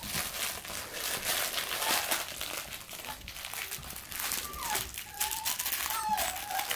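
Labradoodle puppies scuffling and rustling on blankets and a plush bed, with many short crinkly scrapes of paws and fabric. About halfway through, high thin whining calls from a puppy start and go on, bending up and down in pitch.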